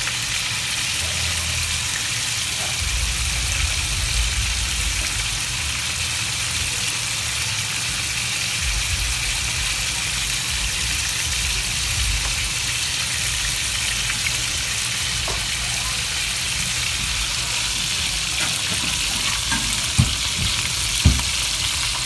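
Scallops searing in melted butter in a hot cast iron pan, a steady sizzle, with two short knocks near the end.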